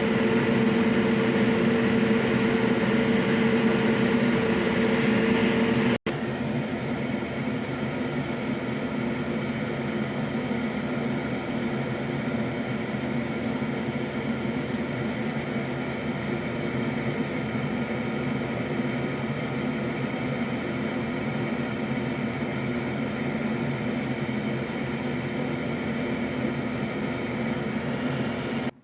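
Steady, loud whir of a small electric motor or fan, with a fixed hum of several pitches. At an abrupt cut about six seconds in it drops a little in level, with its strongest low tones fading, then runs on evenly.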